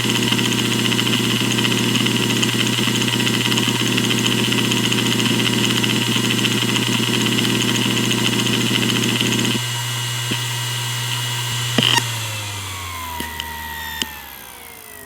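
Maxtor DiamondMax 10 6V300F0 hard drive running with a steady spindle hum and rapid ticking of head seeks. Past the middle the seeking stops; a couple of seconds later a sharp click comes, and the spindle spins down with a falling whine as it powers off.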